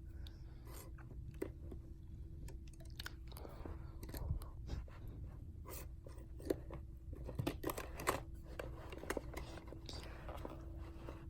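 Scattered small clicks and rustles of a weather radio being handled and its controls adjusted, over a faint steady hum.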